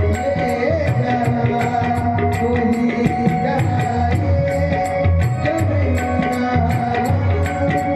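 Tabla playing a devotional bhajan, with a sustained wavering melody line over the drum strokes and a quick, even high ticking beat of about three or four strikes a second.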